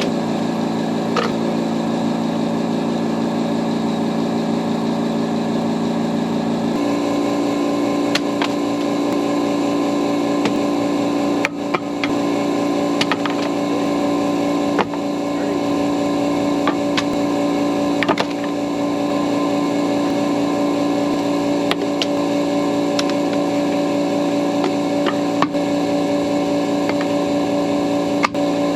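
Vehicle engine running steadily, heard from inside the cab, its hum shifting to a different pitch about seven seconds in. Occasional sharp knocks and clatters from bottles being tossed out at a can.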